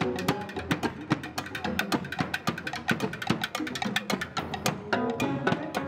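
Afro percussion ensemble playing live: a fast, dense rhythm of hand drums, drum kit and cymbals, with pitched notes coming back in over the drums near the end.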